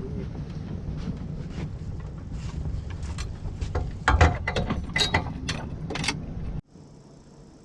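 Sharp mechanical clicks and rattles, busiest in the middle, over the steady low hum of a boat's motor; the sound cuts off suddenly near the end.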